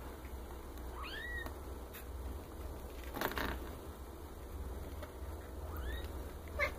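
Young Maine Coon kittens mewing: two short, high mews that rise and fall in pitch, one about a second in and another near the end. A brief burst of noise comes midway.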